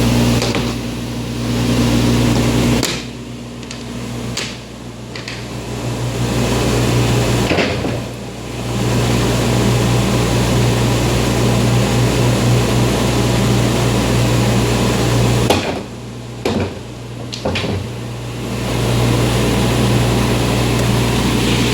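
CNC router running steadily with a strong low hum and a wide rushing noise. The sound drops back briefly three times: about three to five seconds in, around eight seconds, and from about sixteen to eighteen seconds.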